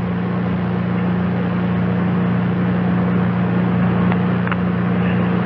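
Steady hiss with a constant low electrical hum from the launch broadcast's audio line, with no voices or other events.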